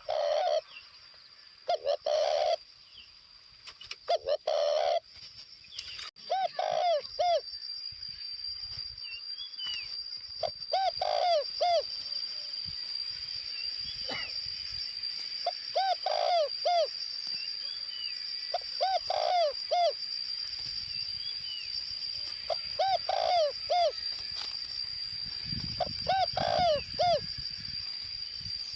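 Spotted dove, a kept decoy male, cooing: about nine phrases of three or four low, arched coos, spaced every two to five seconds. Short chirps of other small birds come in between.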